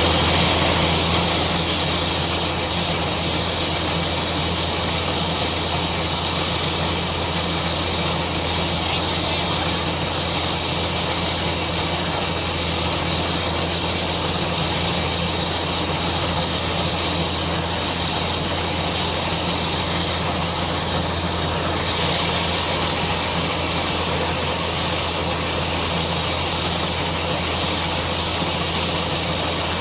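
Rice combine harvester running under load while it cuts rice, heard from on board: a steady low engine hum under a constant hiss of the machinery.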